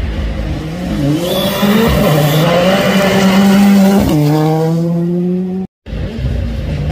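Ford Fiesta rally car accelerating hard toward and past close by, its engine pitch climbing and then dropping sharply as it passes about four seconds in. The sound cuts off abruptly near the end, and another rally car's engine is then heard approaching.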